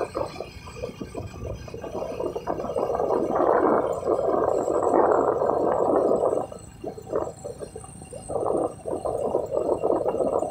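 Wind buffeting the microphone of a moving motorcycle, a rough, gusting rumble that eases for a moment about two-thirds of the way through.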